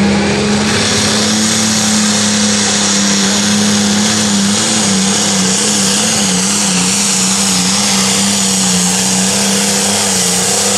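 Turbocharged diesel engine of a John Deere Limited Pro Stock pulling tractor running flat out under heavy load as it drags the sled. There is a high whine above the engine's drone. The engine note wavers for a few seconds midway.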